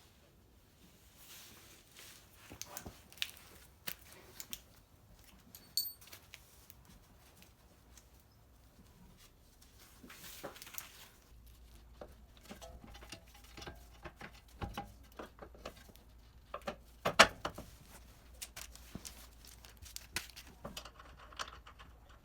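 Irregular clicks, taps and knocks of tools and metal parts being handled while a new front drive axle is fitted, with one louder knock about three quarters of the way through.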